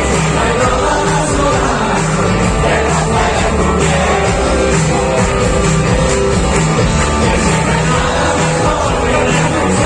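Live rock band playing with amplified vocals, electric guitars and drums, recorded from the audience at a concert.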